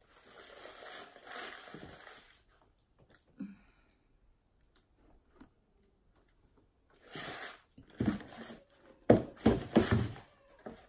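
Handling noise as leather ankle boots are picked up and turned in the hands: a soft rustle for the first two seconds, a few faint ticks, then a run of louder knocks and thumps near the end.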